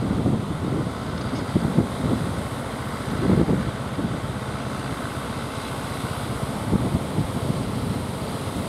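Fishing boat's engine running as the boat heads out through the surf, with waves breaking and wind gusting on the microphone.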